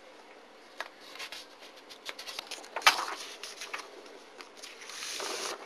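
Sheets of paper being handled and swapped on a desk: light rustles and taps, a sharper tap about three seconds in, and a soft sliding rustle near the end.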